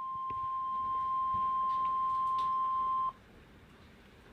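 NOAA Weather Radio warning alarm tone, a single steady 1050 Hz beep that cuts off abruptly about three seconds in, leaving faint hiss on the broadcast.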